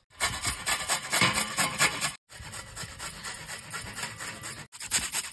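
Raw beetroot being grated by hand on a flat metal grater: quick, repeated scraping strokes, broken by two short gaps.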